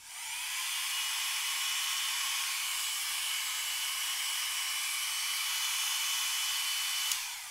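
Havells compact hair dryer running: a steady rush of blown air with a thin high whine from its fan. It is switched off with a click about seven seconds in and the motor winds down, the sound fading away.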